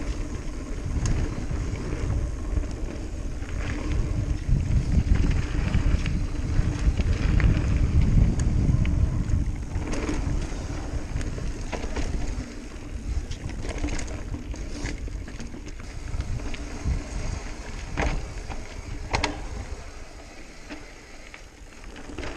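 Mountain bike riding fast down a dirt singletrack: wind rumbling on the microphone and tyres on dirt, with sharp knocks and rattles as the bike goes over bumps. The rumble is heaviest in the first half and eases off after about ten seconds.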